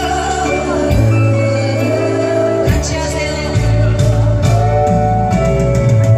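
An upbeat song with a singing voice over a steady bass line and drum beats.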